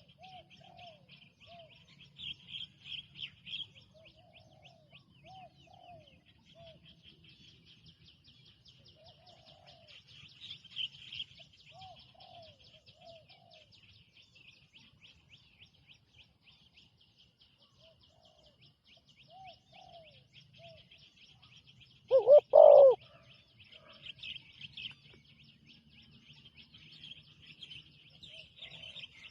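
Spotted doves cooing: short, soft coo phrases repeat every few seconds, with one loud, close coo about 22 seconds in. A steady high-pitched chirping runs underneath.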